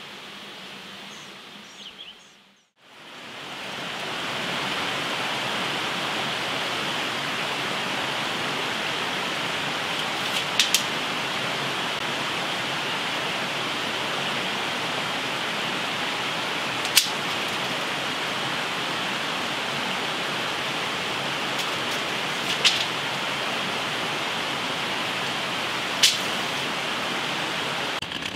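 A steady rushing hiss fades in about three seconds in and then holds evenly, like running water or sped-up background noise, with four sharp clicks scattered through it.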